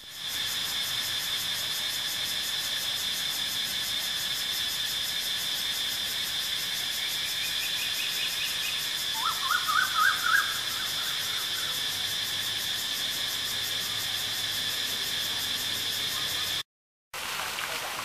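Evening insect chorus, a steady high-pitched drone. About halfway, a bird calls two short runs of notes, each climbing in pitch, the second lower and louder. The drone cuts off abruptly near the end.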